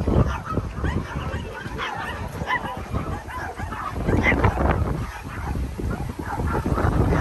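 Several small dogs yipping and barking in short, high-pitched calls scattered throughout, over a steady low rumble.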